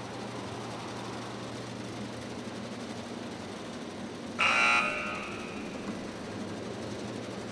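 A steady low hum, broken about four and a half seconds in by a short, loud buzzer lasting about half a second, the 'failed' sound effect that marks a test failure.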